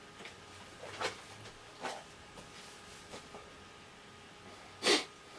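Milk being gulped from a plastic bottle, a couple of soft swallowing sounds, then one short, loud, noisy rush of breath about five seconds in as the drinker recovers from the chilli burn.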